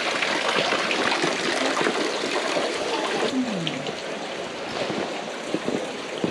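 Water trickling steadily from the spout of a shrine's purification fountain into its stone basin and spilling over the edge. It grows fainter about three seconds in.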